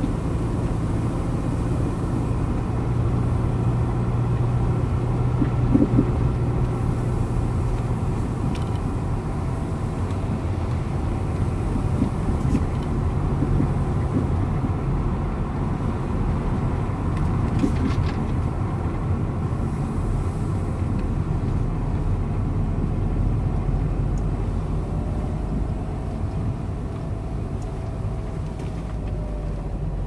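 A car driving on a paved road, heard from inside the cabin: a steady low rumble of engine and tyres.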